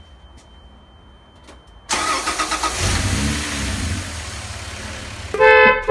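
Toyota FJ80 Land Cruiser engine cranked and started on a freshly installed battery: a thin steady high warning tone, then the starter catches about two seconds in and the engine settles to idle. Near the end the newly fitted aftermarket horn sounds one loud blast.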